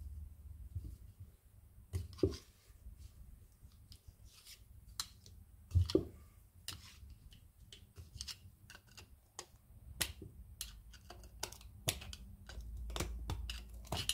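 Scattered light metallic clicks and a few dull knocks, the loudest about two seconds in and again near six seconds, as old differential bearing parts are handled and set down by hand.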